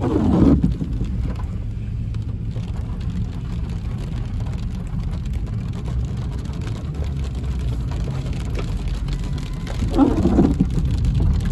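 Car interior noise while driving on a wet road in rain: a steady low road-and-engine rumble with rain hitting the windshield. A brief louder sound comes at the start and another about ten seconds in.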